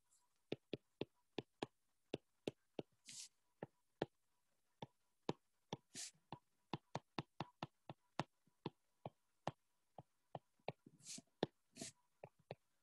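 Faint sharp clicks and taps of a pen or stylus against the writing surface as an equation is handwritten, several a second and unevenly spaced, with a few brief soft hisses in between.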